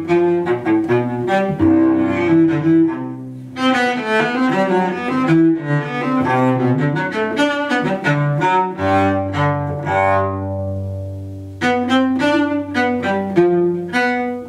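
Solo cello bowed in a quick run of short notes, at times over a held low note. The playing dips briefly about three and a half seconds in and again near twelve seconds, then goes on with fast, short strokes.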